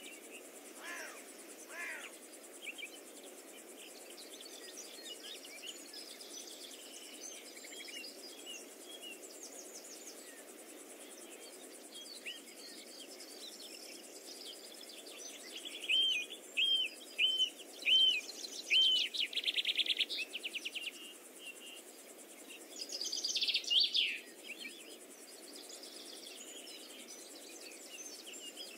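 Birds singing: a run of short, repeated arched whistles followed by a fast trill, loudest in the second half, with a few quieter falling calls earlier. A faint steady hiss of insects runs underneath.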